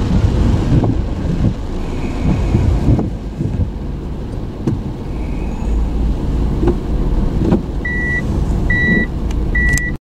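Gusty wind and rain buffeting a stopped car, heard from inside the cabin as a low rumble with occasional knocks. Near the end come three short, high electronic beeps about a second apart.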